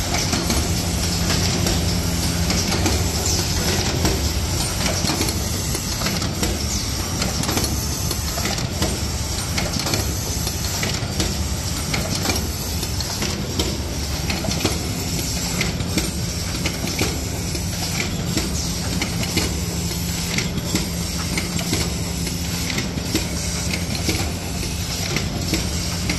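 Paper tray (octagonal box) forming machine running: a steady mechanical clatter of many small clicks over a low hum and a hiss.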